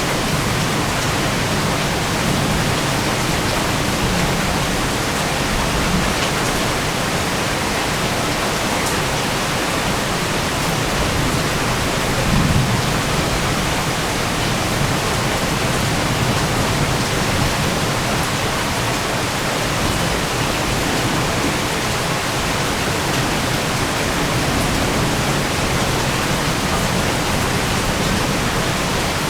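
Heavy thunderstorm rain pouring down in a steady, dense hiss, with a brief low rumble about halfway through.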